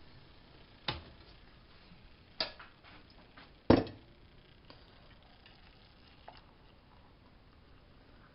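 Three sharp clanks of a metal stovetop kettle being handled on a gas stove and counter, the third the loudest, then a faint trickle of water poured from the kettle into a ceramic mug.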